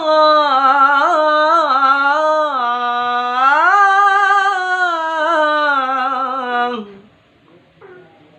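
Melodic Qur'an recitation (tilawah): one voice draws out "illā Allāh" in a single long, ornamented line, its pitch sliding up and down, and stops about seven seconds in.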